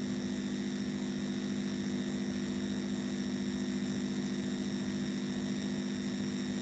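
A steady background hum: a low drone with a faint high whine above it, unchanging throughout.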